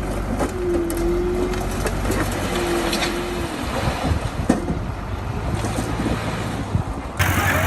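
Bulldozer's diesel engine running under scattered track clanks and knocks, with a brief squeal three times in the first few seconds. About seven seconds in, the sound cuts abruptly to a louder engine.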